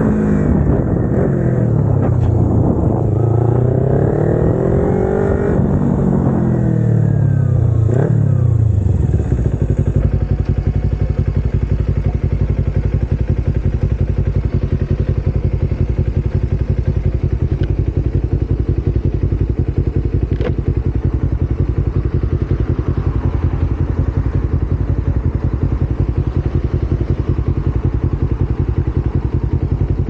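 Kawasaki Ninja 250R's parallel-twin engine: for the first ten seconds it is under way, its pitch falling, rising and falling again as the bike slows, pulls away and slows to a stop, with wind on the microphone. From about ten seconds in it idles steadily.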